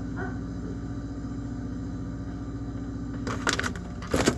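A refrigerator's steady hum, heard from inside the closed fridge. About three seconds in it is broken by rustling and knocks, ending in a loud bump as the phone is handled and taken out.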